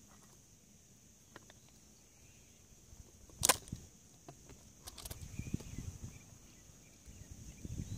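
Handling noises at a homemade water-rocket launcher and its floor pump: a single sharp clack about halfway through, then rustling and soft knocks as the fittings are worked by hand.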